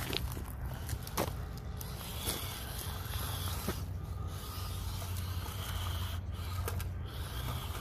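Hobby Plus CR-18 1/18-scale RC crawler driving over rough trail ground: a low, steady motor and gear hum with scattered sharp clicks and crunches from its tyres on rocks and dirt.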